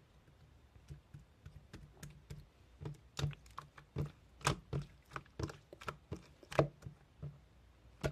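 A string of irregular, sharp clicking taps, sparse at first and louder and denser through the middle.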